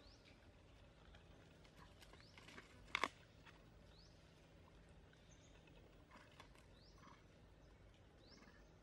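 Near silence, with faint short high chirps rising in pitch every second or two and one brief sharp click about three seconds in.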